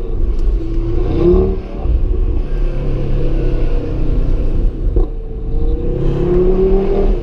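Audi TT RS's turbocharged 2.5-litre inline five-cylinder engine under way, revving up about a second in, dropping briefly, then climbing in pitch again near the end. A single sharp crack about five seconds in.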